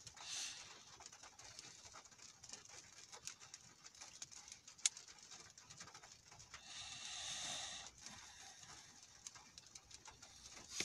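Almost silent car cabin: a faint hiss with a short soft swell of noise at the start, a single click about five seconds in, and a longer soft swell of noise about seven seconds in.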